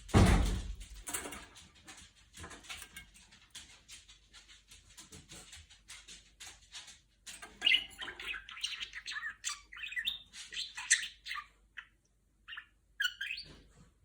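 Pet budgerigar chattering, with fast, broken chirps and warbles in the second half. It opens with a loud knock, followed by small scratchy clicks as the bird moves about.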